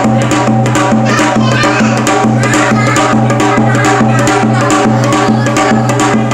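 Music of janggu (Korean hourglass drum) strokes in a steady, quick rhythm, several sharp hits a second, over a held low tone.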